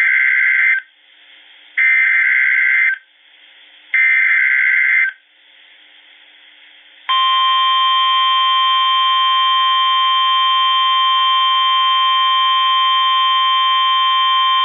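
Emergency Alert System SAME header: three bursts of warbling digital data tones, about a second each and a second apart, followed about seven seconds in by a long, steady alert tone, the NOAA Weather Radio 1050 Hz warning alarm. Together they mark the start of a new weather warning broadcast.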